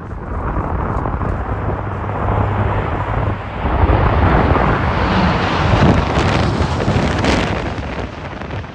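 Jet engine noise of a KC-767 tanker flying past, building to its loudest around the middle and growing brighter as it passes, with wind buffeting the microphone.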